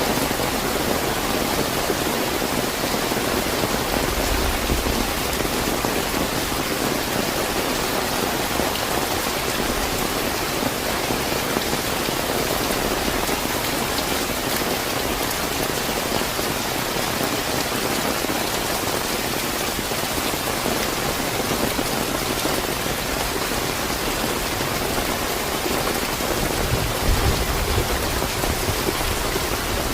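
Steady, moderately heavy rain falling, an even dense hiss of drops. Two brief low rumbles come through, about four seconds in and again near the end.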